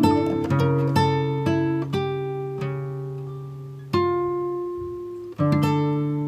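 Background music of plucked acoustic guitar. Single notes come first, then chords that are left to ring out, with fresh strums about two-thirds of the way in and near the end.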